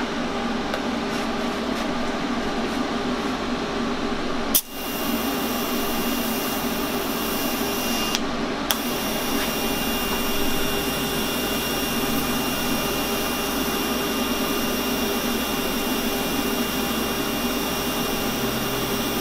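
TIG welding arc on a steel exhaust piece: a steady hum and hiss. There is a sharp click about four and a half seconds in, after which a thin, steady high whine joins it.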